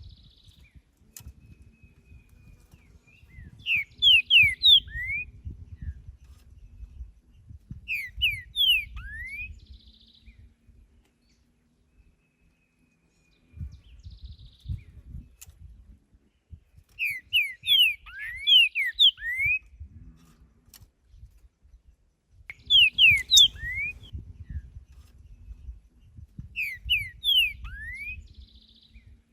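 Green-winged saltator (trinca-ferro) singing: about five short phrases of loud, clear whistled notes that slide up and down, each lasting a second or two and spaced a few seconds apart. A faint low rumble sits underneath.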